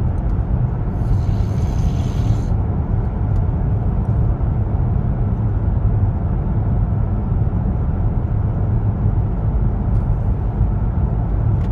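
Steady low rumble of a car driving, heard from inside the cabin. About a second in there is a brief higher-pitched rasp lasting about a second and a half.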